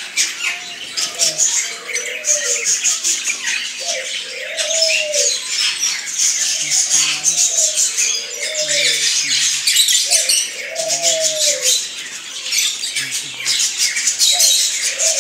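A roomful of caged budgerigars and other small birds chirping and chattering together. Under the chatter, a lower call that rises and falls comes back about every one to two seconds.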